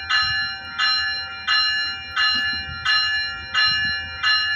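A passenger train's bell ringing steadily, a clear metallic strike about every two-thirds of a second (seven strikes), as the Metrolink train moves off from the platform. A faint low rumble runs underneath.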